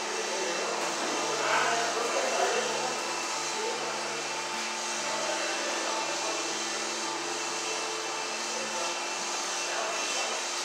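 Steady whir of large electric fans running, with a constant low hum under it; the sound is a little louder briefly about two seconds in.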